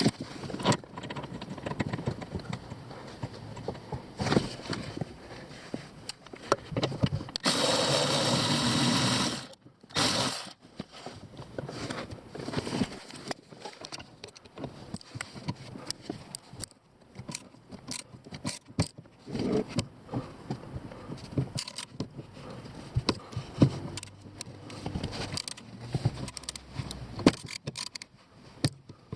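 Tools clicking and knocking on metal during work on a car's steering-shaft universal joint, with a power tool running steadily for about two seconds about a quarter of the way in.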